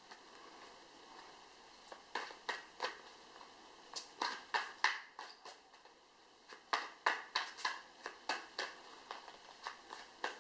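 Arthurian tarot deck being shuffled and handled: sharp card taps and clicks coming in quick runs, with short pauses between.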